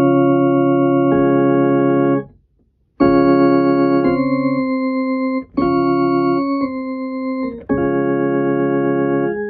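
Electric keyboard playing held chords on an organ-type voice, each chord sustained evenly without dying away. There are about seven chords, with a short silent break a little over two seconds in.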